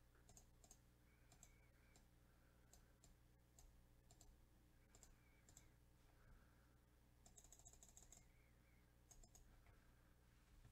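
Near silence with faint, scattered clicks of a computer mouse and keyboard, and a quick run of clicks about seven seconds in, over a steady low hum.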